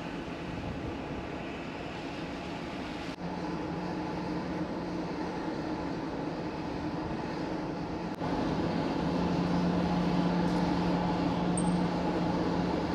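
Steady drone of a long-distance ferry under way: a low engine hum under a hiss of wind and sea. The mix changes abruptly about three seconds in and again about eight seconds in, after which the hum is stronger and a little louder.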